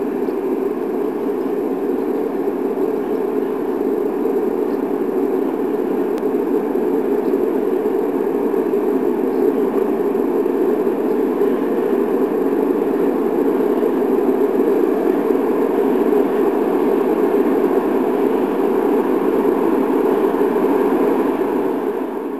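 Freight train passing: a locomotive hauling open wagons, making a loud, steady running noise that keeps up without let-up and cuts off suddenly at the very end.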